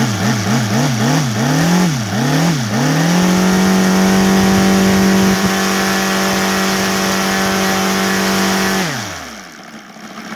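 Seven-cylinder four-stroke OS Sirius FR7-420 model radial engine, running on gasoline with CDI ignition and turning a 24x10 propeller. Its throttle is blipped quickly, about three times a second. It is then opened to full throttle, around 5,800 rpm, and held steady for about five and a half seconds, before dropping quickly back to idle near the end.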